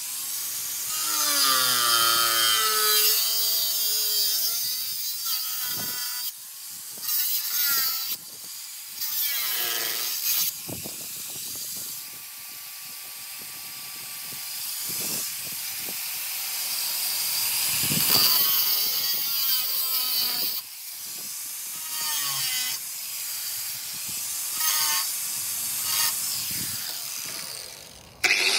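Angle grinder with a cutting disc slicing through the rusted steel sliding-door sill of a VW T4 van. Its whine rises and falls in pitch as the disc bites, with several brief breaks where the cut pauses.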